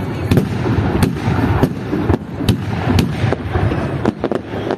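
Fireworks display: aerial shells bursting overhead in an irregular string of sharp bangs, several a second, over a continuous low rumble, with a quick cluster of cracks near the end.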